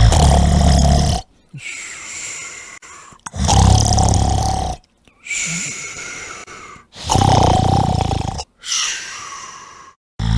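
A man snoring loudly: three deep, rattling snores, each about a second and a half long, alternating with quieter, higher, hissing breaths between them.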